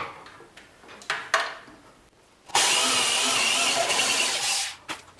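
Handheld electric drill running for about two seconds, boring a pilot hole into wood; it starts abruptly a little past halfway and winds down near the end. A few light knocks of tools being handled come before it.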